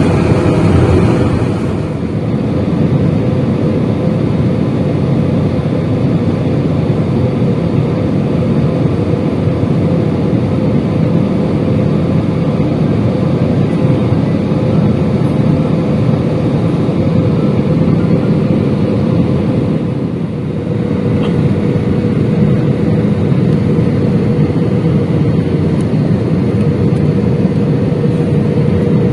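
Steady roar of an Airbus A320's engines and rushing air heard inside the passenger cabin during descent on approach to landing, with a faint steady hum. The roar dips briefly about two-thirds of the way through, then returns.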